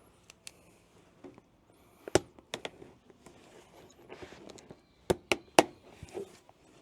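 Cardboard box being handled: a series of sharp knocks and clicks, one about two seconds in and a quick cluster near the end, with faint rustling between.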